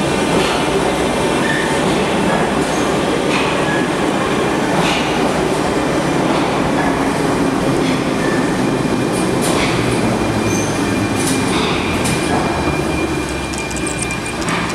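81-717/714 metro train running along a station platform: a steady rumble with scattered clicks of the wheels over rail joints. From about two-thirds of the way through, a thin steady wheel squeal joins in.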